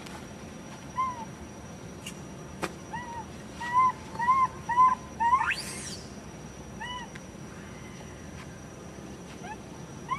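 Young macaque crying: a run of short, arched whimpering calls, several a second for a few seconds. About halfway through comes one sharp rising squeal, then a few more scattered whimpers.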